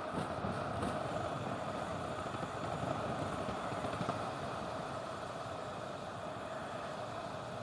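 Steady rush of wind buffeting the microphone of a road bike descending fast, easing a little toward the end.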